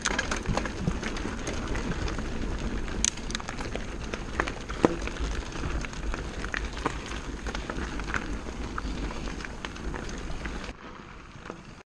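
Mountain bike riding over a rocky gravel trail: tyres crunching on loose stones, with frequent short clicks and knocks from the bike rattling over rocks. The sound drops away and cuts off just before the end.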